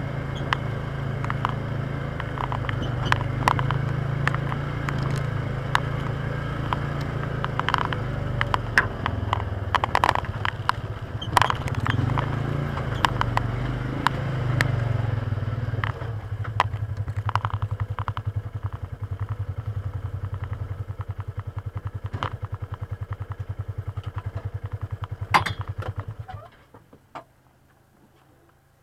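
Polaris Ranger side-by-side's engine running, with rattles and clatter over it. About 16 seconds in it settles into a slower, evenly pulsing idle, and about 26 seconds in it shuts off.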